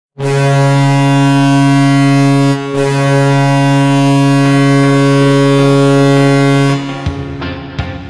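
Toronto Maple Leafs goal horn: a loud, low-pitched ship-style horn blast, broken by a short gap about two and a half seconds in and then held again until nearly seven seconds. The goal song starts near the end with drum hits.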